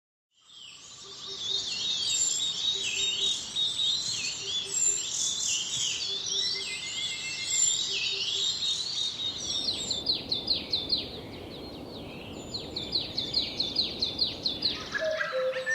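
A chorus of many Himalayan forest birds singing and calling over one another, with many short chirps and quick trills, fading in over the first second. About two-thirds of the way through, a soft rushing noise rises beneath the birds.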